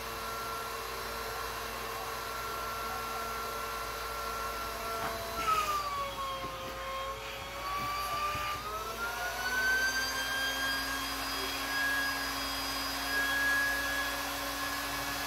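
Portable electric air pump whirring as it inflates an inflatable kayak. Its steady whine sags in pitch for a few seconds around the middle, then climbs back up and settles a little higher.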